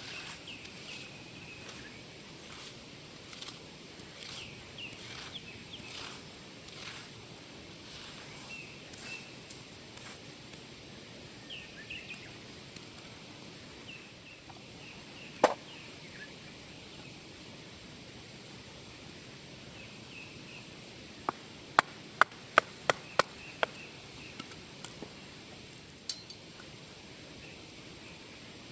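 Sharp knocks of something hard being struck: a single knock about halfway through, then a quick run of about seven strikes in two seconds and a few softer ones after. Faint short high bird chirps sound throughout.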